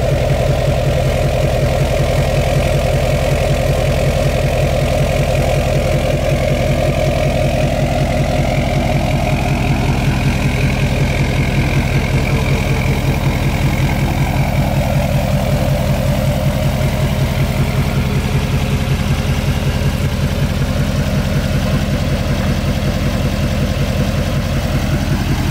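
Tuned and deleted 2015 LML Duramax 6.6 L V8 turbo-diesel idling steadily through a side-exit exhaust, with an even, rapid diesel pulse.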